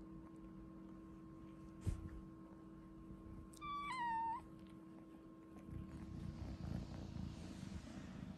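British Shorthair cat giving one short, high meow that dips slightly in pitch about halfway through, after a single soft knock. Then rustling as the cats shift on the plush bed, with low purring.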